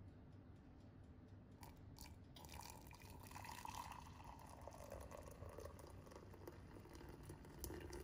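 Water poured in a thin stream into a ceramic mug onto instant coffee powder, starting a little over two seconds in, with the tone of the pour slowly sinking as the mug fills. A few faint clicks come before it.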